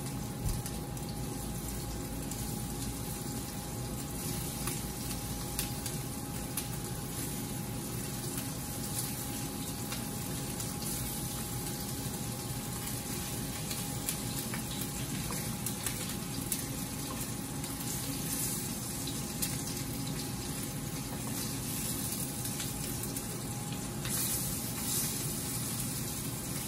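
Meatballs sizzling as they fry in hot olive oil in a skillet, a steady hiss with many small pops of spattering oil and a faint steady hum underneath. The sizzle swells briefly near the end as a wooden spoon moves the meatballs in the pan.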